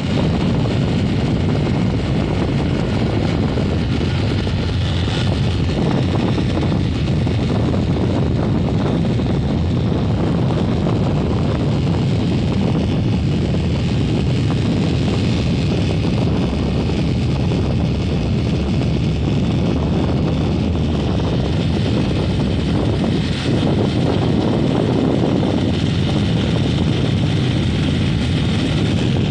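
Steady, heavy wind noise on the microphone from riding a moving motorcycle through strong wind, with the motorcycle's running blended underneath.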